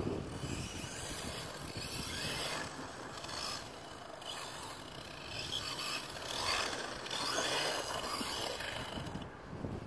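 Redcat Blackout XTE electric RC truck, geared with a 20-tooth pinion and running on a 3S battery, driving across grass. Its motor and drivetrain whine swells and fades several times with the throttle.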